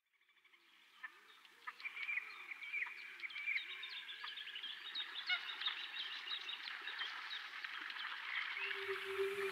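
Forest ambience of birds chirping, many short calls overlapping, fading in after a moment of silence, with softer wavering low calls beneath. Near the end a steady low humming tone comes in.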